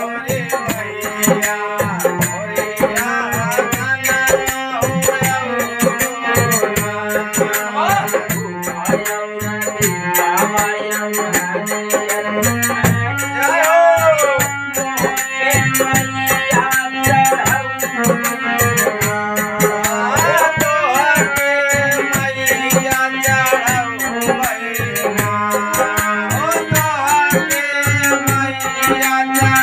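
Harmonium playing held chords and melody, with hand percussion shaken in a quick, steady rhythm. A man's voice sings over it at times, clearest about halfway through.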